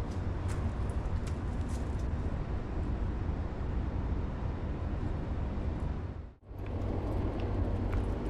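Steady low outdoor rumble with a faint noisy haze and a few light clicks; the sound drops out briefly about six seconds in, then returns.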